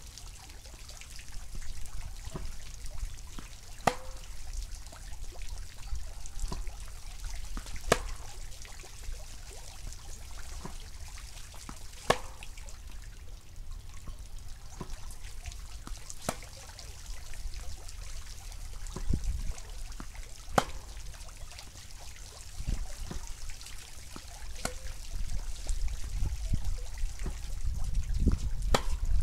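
Tennis ball struck by a racket (Yonex VCORE Tour G) in a steady groundstroke rally, a sharp pop about every four seconds, with fainter ticks of ball bounces and the hit from the far side between them.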